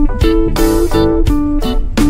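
Background music: a guitar track with a steady drumbeat.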